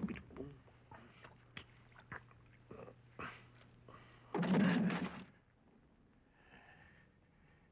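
Bathwater in a tub: small splashes and drips over a steady low hum, then a louder burst of noise about a second long just after four seconds in.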